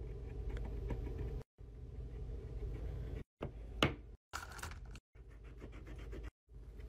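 Pen and marker tips scratching on paper in short chopped-up stretches over a low steady hum. About four seconds in there is a sharp click and a brief rattle as a pen is pulled from a plastic basket of markers. A quick run of even marker strokes on paper follows.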